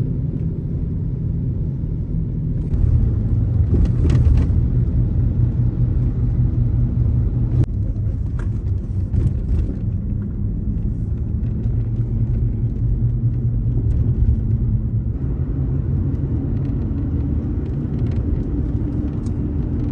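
Car driving: a steady low rumble of engine and road noise, with a few faint clicks now and then.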